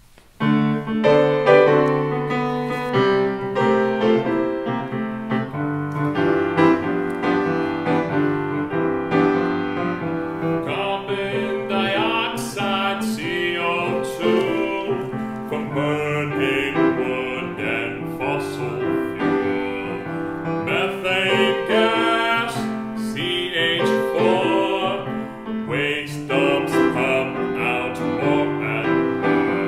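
Piano playing a song intro, then voices singing over the piano accompaniment from about ten seconds in.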